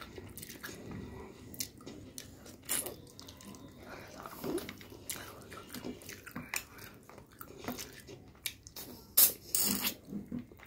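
Wet eating sounds close to the microphone: chewing, lip smacks and sucking clicks as curried chicken is eaten with the fingers, with a few sharper, louder smacks near the end.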